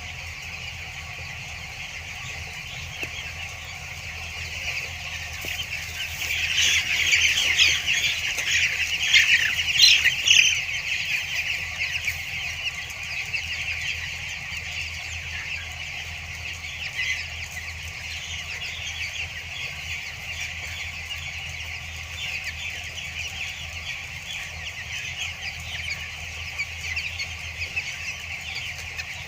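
Flock of two-week-old broiler chicks cheeping continuously, a dense chorus that swells louder for a few seconds about six to eleven seconds in. A steady low hum runs underneath.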